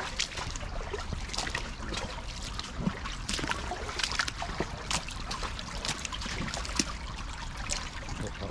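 Wading through a shallow, running brook: irregular splashes and sloshes from steps in the water over the steady trickle of the stream.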